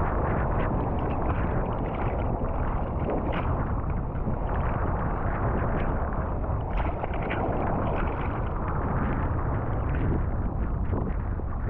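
Gale-force wind rushing over the microphone, with waves surging and splashing around a sea kayak as a steady rushing noise throughout.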